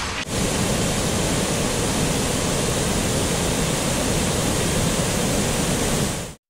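River water rushing over a weir and through rocky rapids: a steady rush that cuts off suddenly near the end.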